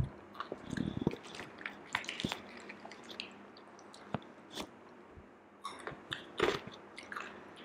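Chewing and crunching of a black chili-coated Jolochip, a string of irregular crisp crunches with short pauses between them.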